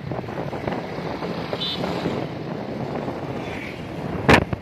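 Wind rushing over the microphone of a moving motorcycle, with the bike's engine and road rumble underneath. A single sharp knock, the loudest sound, comes near the end.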